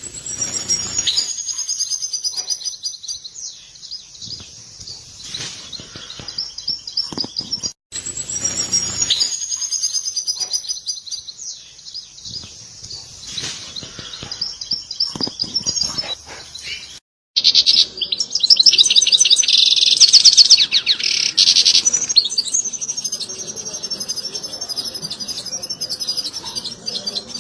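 European goldfinch twittering: runs of quick, high chirps. About two-thirds of the way through, after an abrupt cut, it turns into a louder, dense, rapid trill.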